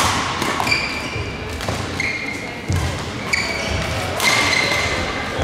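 A badminton rally: rackets striking the shuttlecock every second or so, with sports shoes squeaking in short chirps on the court mat as the players move.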